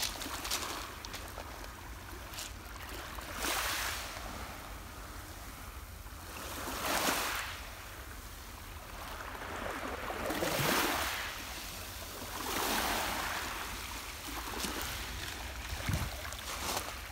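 Small waves of the calm Black Sea washing onto a pebble beach: a hiss that swells and fades every two to four seconds, over a steady low rumble.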